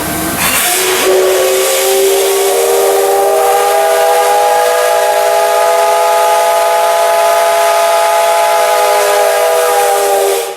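Steam whistle of the C57 1 steam locomotive sounding one long blast, a chord of several tones that slides up a little as it opens and then holds for about nine seconds before cutting off sharply. It opens with a rush of steam hiss. This is the whistle given at departure.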